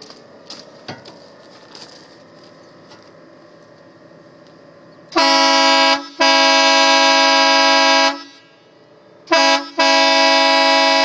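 Air train horn with two 6.5-inch trumpets, fed by an onboard compressor and tank on a 2011 Ford Raptor, blown about halfway in: a short toot then a long blast of about two seconds, and after a pause the same again. Pretty loud.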